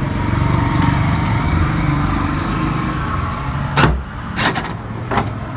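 A car trunk being opened: a few sharp clicks and knocks of the latch and lid, about four and five seconds in, over the steady running of a vehicle engine nearby.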